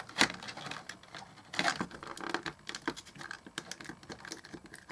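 Irregular small clicks, taps and scrapes of plastic and metal parts being handled while a clock radio is taken apart, with a denser scraping patch about one and a half seconds in.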